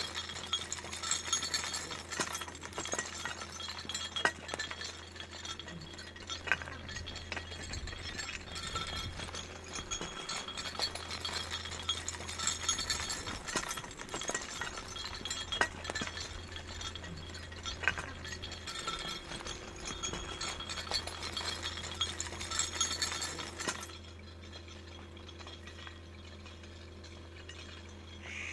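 Horse walking on a stony dirt track: irregular clinks and clacks of hooves on stones, over a steady low hum. The clinking fades out about four seconds before the end.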